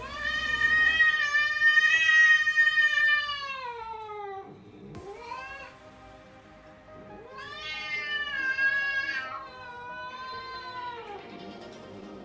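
A cat giving long, drawn-out yowling meows: one long call, a short one, then a second long call, each falling in pitch at its end, over background music.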